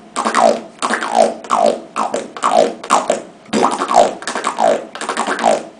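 A beatboxer performing the finished lip roll: a rhythmic run of about two rolling lip buzzes a second, each sweeping down in pitch, with a short break about halfway through.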